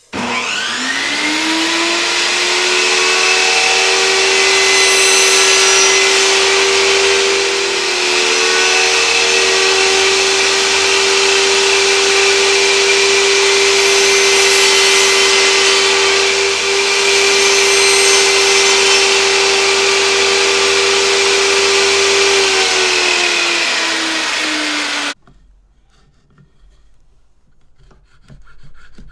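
Benchtop table saw motor spinning up with a rising whine, then running steadily as a board is ripped through the blade, the pitch sagging a little a few times. It stops abruptly near the end, followed by faint rubbing of a hand file on wood.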